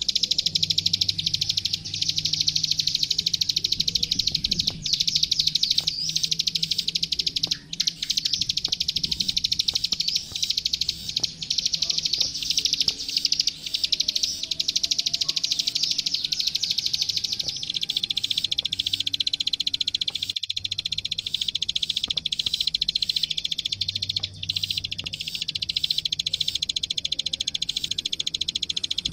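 Plain prinia (ciblek sawah, the 'klik klik') singing without a break: a fast, dense run of high, clicking notes that drops slightly in pitch a little past halfway.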